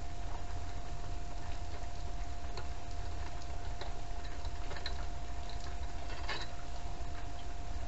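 A few light, scattered metallic clicks and ticks of hand tools working on the engine mount bolts, over a steady low hum and a faint high whine.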